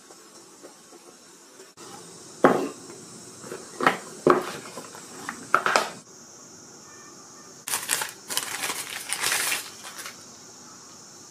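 Smartphone packaging being handled: four or five sharp knocks and clicks, then about two seconds of crinkling rustle near the end.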